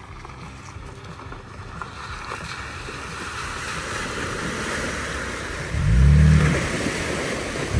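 Off-road pickup truck driving on a dirt trail: a noisy rumble that grows steadily louder, with a short engine rev near the end that rises then falls in pitch.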